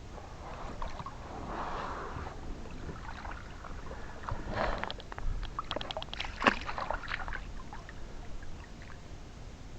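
Handling noises aboard a kayak: water sloshing, then a scatter of sharp clicks and knocks, the loudest knock about six and a half seconds in.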